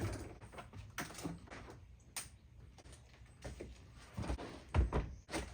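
Scattered clicks and knocks of tools and parts being handled and set down, with a few heavier low thumps about four to five seconds in.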